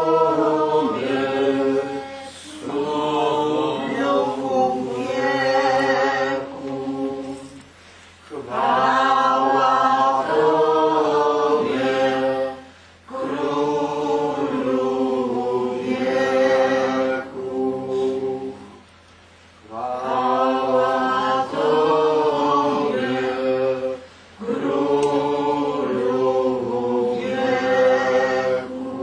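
Unaccompanied voices singing a slow, chant-like church hymn in phrases of about four to six seconds, with short breaks for breath between them.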